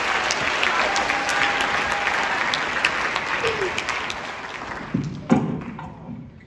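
Audience applauding, then fading out near the end, with a couple of sharp knocks about five seconds in.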